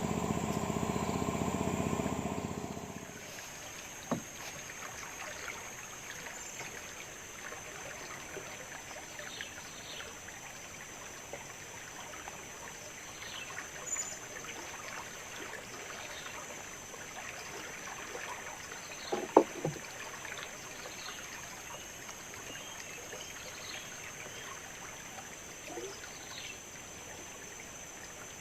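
A steady low hum made of several even tones stops about three seconds in, leaving water-side ambience: a constant thin high insect drone, faint chirps and trickles, and a few sharp knocks, the loudest a double knock about nineteen seconds in.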